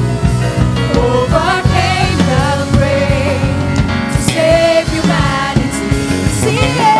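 Live gospel praise-and-worship song: singers held over a band with drums and keyboard, a steady beat running throughout.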